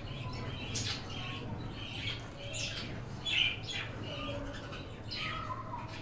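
Birds squawking and chirping in repeated short, sharp calls that sweep down in pitch, over a steady low hum.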